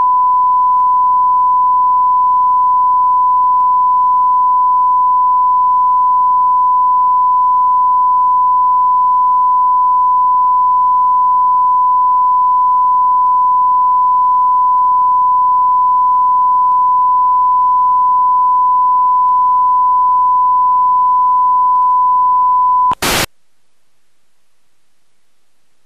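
A steady, loud test tone at one pure pitch, played off the end of a videotape. About 23 seconds in it cuts off with a short burst of static, and only faint hiss follows as the tape signal ends.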